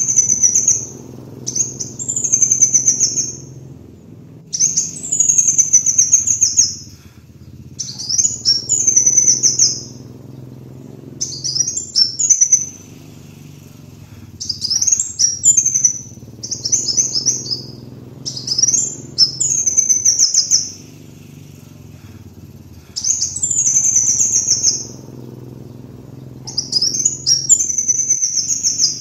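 Kolibri wulung sunbird singing: short high-pitched phrases of quick rising and falling notes, repeated every two to three seconds, over a faint low hum.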